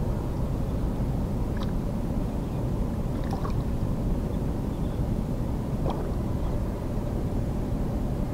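Steady low rumble of wind on the microphone, with a few faint short splashes as a hooked fish struggles at the water's surface.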